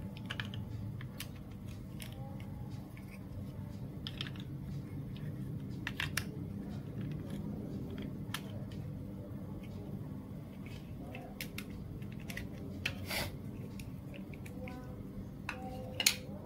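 Hard plastic building bricks and marble-run track pieces being handled and pressed together, giving irregular clicks and knocks, the sharpest about a second before the end, over a steady low hum.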